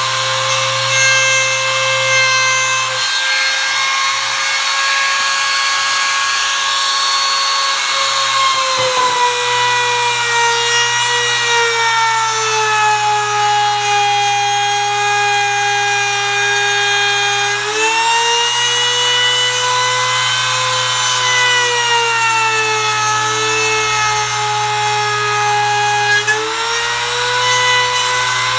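Makita trim router running at full speed as its bit cuts a decorative pattern into a wooden board. Its high motor whine drops in pitch a few times as the bit bites deeper into the wood, then climbs back.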